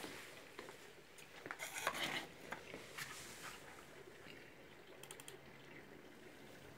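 Faint scattered clicks and light rustling, busiest about two seconds in, with a quick run of small ticks a little after five seconds.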